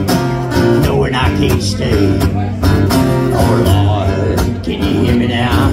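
Strummed acoustic guitar with a harmonica playing a melody over it, an instrumental break in a country song.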